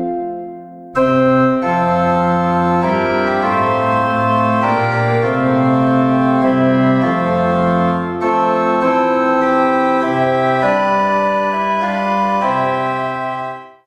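Organ playing slow, sustained chords that change every second or so. It dips briefly in the first second, then plays on and stops abruptly near the end.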